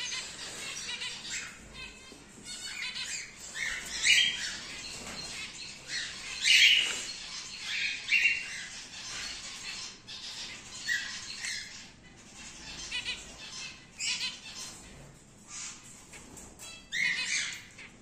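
Cockatiels calling in an aviary: a string of short, irregular squawks and chirps, the loudest about a third of the way in.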